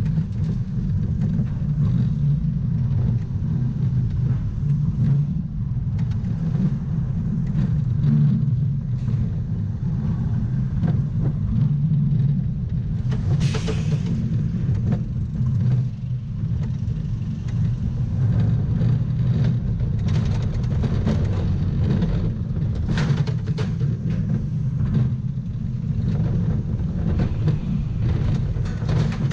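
Mack Wild Mouse coaster car running along its steel track: a steady low rumble of the wheels with scattered rattles and knocks from the car, and a brief hiss about thirteen seconds in.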